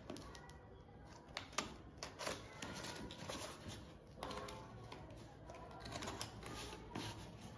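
Box cutter slicing around the sides of a small cardboard product box: faint, irregular scrapes and clicks of the blade and of the box being turned by hand.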